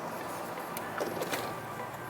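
A few light clicks and rattles of plastic dashboard trim being pried and handled, over faint background music.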